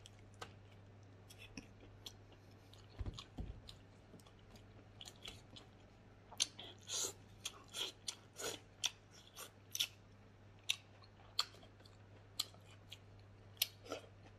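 A person chewing and biting smoked pork leg and then leafy greens: irregular sharp mouth smacks and clicks, more frequent from about six seconds in, over a faint steady low hum.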